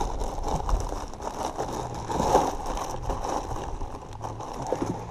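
Scraping and rattling handling noises on a bass boat's deck, over a low steady hum.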